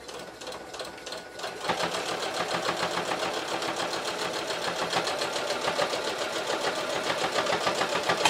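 Janome 8260 computerized sewing machine stitching through two layers of fabric: a quieter start, then a rapid, even run of stitches from about two seconds in, stopping sharply at the end.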